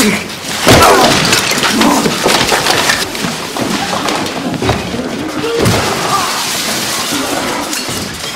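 Men fighting: grunting and straining voices over scuffling, with repeated knocks and crashing noise.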